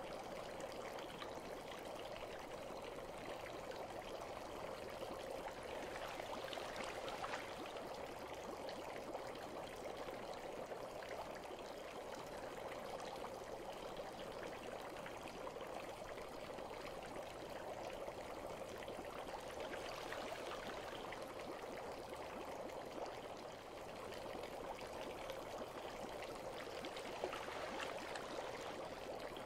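Steady, fairly faint bath water trickling and lapping, an even sound with no pauses.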